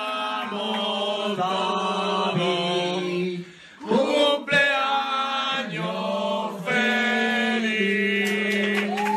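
Voices singing together in long held notes that step from one pitch to the next, dropping out briefly about three and a half seconds in.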